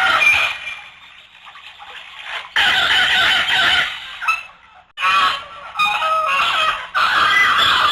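Several birds calling at once in bursts a second or two long, many calls overlapping, with short pauses between the bursts.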